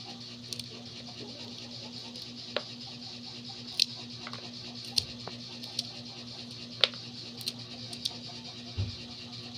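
White corn kernels being thumbed off the cob by hand, clicking as they drop into a plastic basin. The clicks come irregularly, about one a second, over a steady hiss and low hum.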